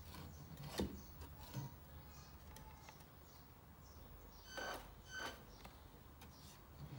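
Light knocks of the wooden loading ramp on the model layout being handled and raised by hand, the sharpest about a second in, over a faint low hum. Two short high beeps about half a second apart come a little after the middle.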